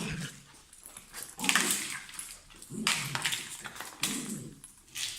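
Pet dog vocalising in short, noisy growling outbursts, about four or five in a row roughly a second apart, as it works itself up on its leash.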